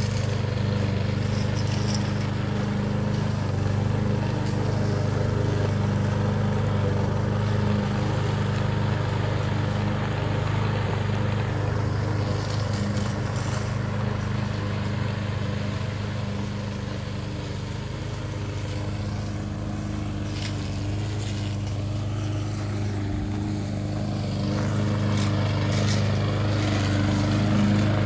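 Gasoline walk-behind rotary lawn mower running steadily while cutting rough grass and weeds. It is a little quieter in the middle and louder near the end.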